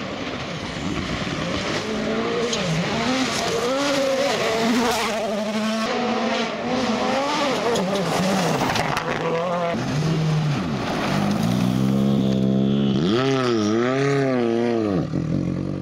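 Ford Fiesta WRC rally car's 1.6-litre turbocharged four-cylinder engine being driven hard on a gravel road, revving up and down through gear changes, with tyres scrabbling over loose gravel. About twelve seconds in, the car passes close and its engine note climbs and drops sharply.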